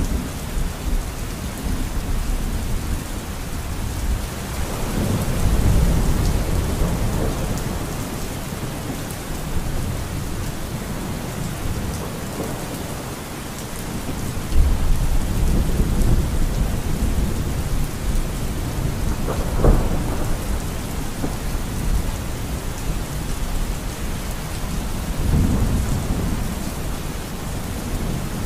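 Steady rain with low rumbles of thunder that swell and fade every few seconds.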